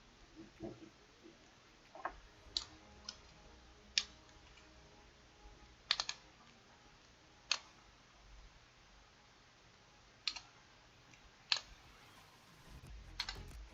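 Scattered sharp metallic clicks and clinks, about a dozen spread irregularly, from tools and fittings being worked while the old kitchen faucet's mounting nuts are loosened.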